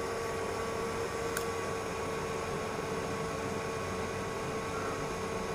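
Computer power supply running, its cooling fan giving a steady hiss with a steady hum. One faint click about one and a half seconds in.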